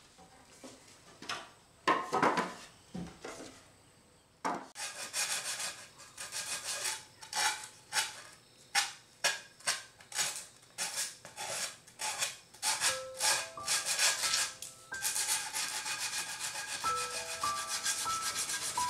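Hand-sanding the edges of pine boards: rasping back-and-forth strokes about two a second, speeding up into a quick continuous scrubbing in the last few seconds. A few wooden knocks from the boards being handled come about two seconds in, and soft music notes come in partway through.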